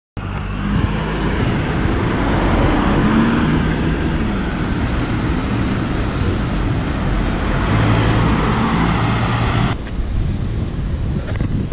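Wind rushing over the microphone of a moving bicycle rider, mixed with car traffic on the road alongside. The higher part of the rush drops away suddenly about ten seconds in.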